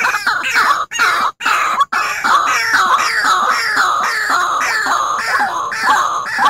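White-breasted waterhen calls played as a bird-lure track: loud harsh notes, each falling in pitch, repeated about twice a second. The sound cuts out briefly twice in the first two seconds.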